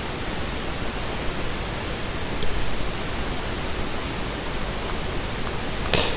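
Steady hiss of background noise, with a faint tick about two and a half seconds in and a short click near the end.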